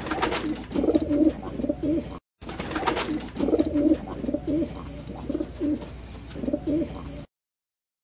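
Pigeon cooing: a run of low, repeated coos with a short break about two seconds in. The sound cuts off about a second before the end.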